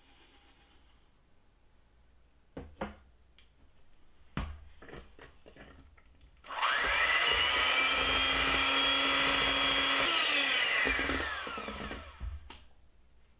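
Electric hand mixer whipping egg whites and sugar into meringue in a glass bowl. A few knocks come first, then about six seconds in the motor starts with a rising whine, runs steadily for about four seconds, and winds down with a falling whine near the end.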